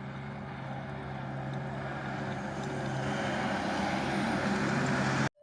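Diesel engine of an ASV RT-40 compact track loader running steadily, slowly growing louder. It cuts off suddenly near the end.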